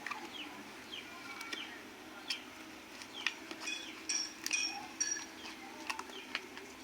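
Small birds chirping in quick short notes, some sweeping downward, with a few sharp clicks among them over a faint steady hum.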